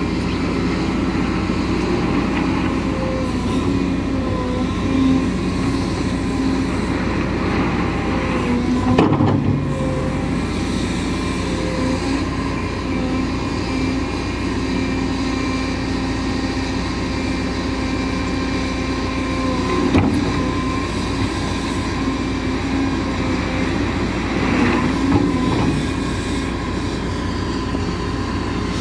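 Caterpillar M322F wheeled excavator working: its diesel engine and hydraulics run steadily, the pitch dipping and rising slightly as the boom and bucket take load. Two sharp knocks come through, about nine and twenty seconds in.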